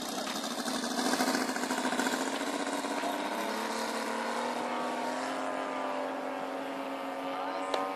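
Saito FG-84R3 three-cylinder four-stroke petrol radial engine, fitted with a Keleo scale muffler, running at high throttle on a giant-scale RC FW190's takeoff roll. Its pitch rises a little midway as the plane gathers speed, then holds steady.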